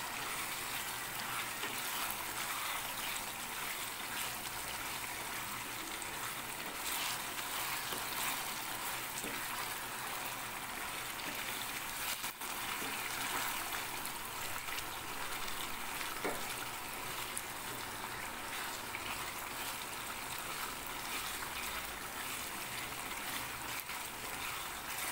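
Chicken curry boiling hard in a pan over a full gas flame: a steady bubbling and sizzling as its liquid cooks down.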